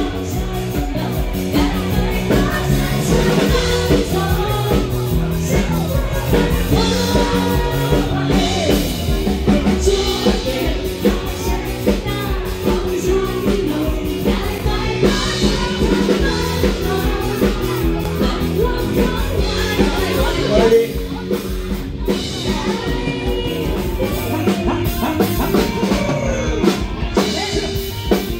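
Live band playing a Thai pop-rock song through a PA system: a sung lead vocal over drum kit and electric guitar, with the level dipping slightly about two-thirds of the way through.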